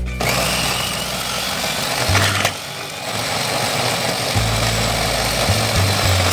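Electric mini food chopper running in pulses, its blades whirring through red chillies and onion; the noise eases briefly about two and a half seconds in and picks up again.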